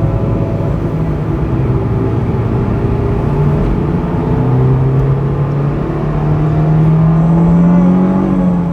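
Honda S2000's 2.2-litre F22C1 four-cylinder engine under way, steady at first, then pulling harder with its pitch rising steadily through the second half as the car accelerates.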